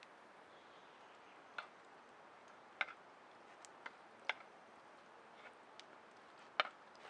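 Scattered raindrops landing on a surface, sharp irregular ticks over a faint steady hiss of rain.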